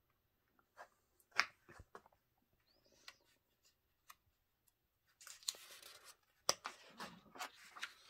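Paper instruction booklet being handled and its pages turned: a few sharp paper clicks and crinkles, then a longer rustle of pages about five seconds in.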